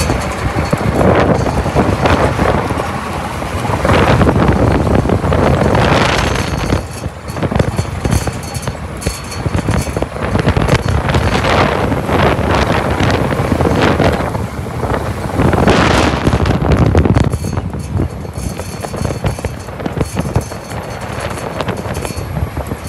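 Vehicle driving over a snow-packed mountain road: engine and tyre noise under heavy wind buffeting on the microphone, swelling and easing in gusts.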